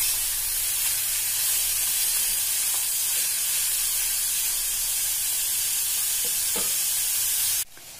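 Sliced onions and green chillies sizzling steadily in hot oil in a pan as they sauté on low flame, with a spoon stirring them now and then. The sizzle cuts off suddenly near the end.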